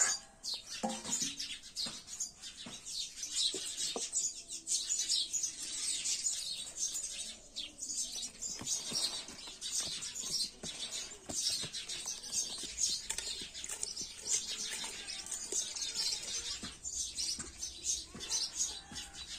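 Many small birds chirping continuously, with a few soft knocks in the first seconds.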